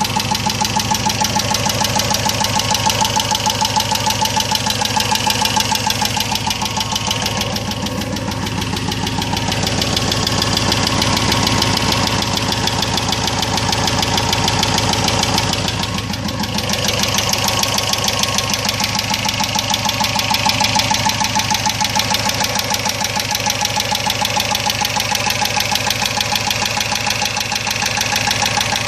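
Chery Amulet car engine running steadily with a fast, even knock. The owner has not identified the cause of the knock.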